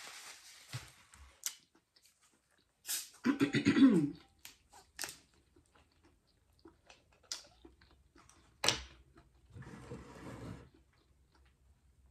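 A person eating up close: chewing and mouth sounds with scattered small clicks, and a short throat sound about three seconds in.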